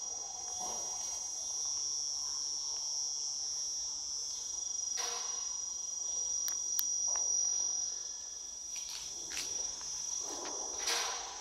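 Steady, high-pitched drone of an insect chorus, with a few short clicks and rustles scattered through it, the loudest near the end.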